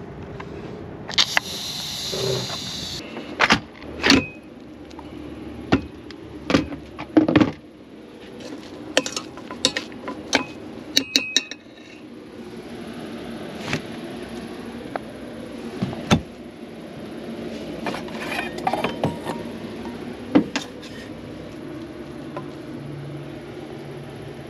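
Cooking-utensil handling: a spoon clinking and scraping against a pressure cooker's metal inner pot as rice is stirred and served, with lid and handle clicks. A short hiss lasts about two seconds near the start.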